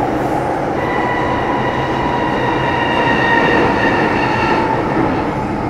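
Interior running noise of an MTR Metro-Cammell M-Train electric multiple unit in a tunnel: a steady loud rumble of wheels and car body. A high, multi-toned whine comes in about a second in and dies away near the end.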